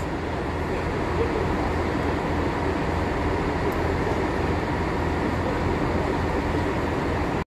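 Steady background noise of a large railway station concourse: an even low rumble and hum with no distinct events, cutting off suddenly near the end.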